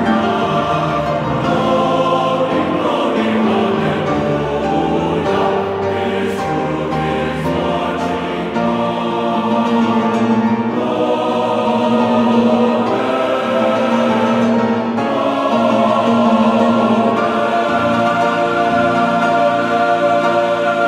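Background music with long held chords that change every few seconds.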